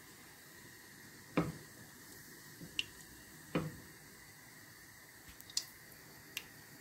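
Mustard seeds popping in hot oil during tempering (tadka): a few scattered sharp pops, the two loudest about one and a half and three and a half seconds in. The crackle is the sign that the oil is hot enough.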